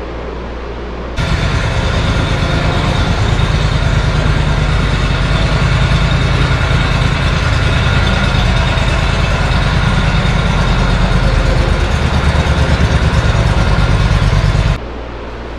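Riding lawn mower's engine running loud as the mower is driven across the shop floor close past the camera. It starts suddenly about a second in and cuts off suddenly near the end, leaving a quieter steady engine hum.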